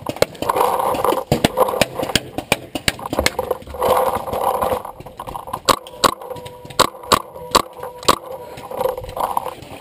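Paintball markers firing in scattered sharp pops at irregular spacing, several in quick succession in the second half, between stretches of muffled noise.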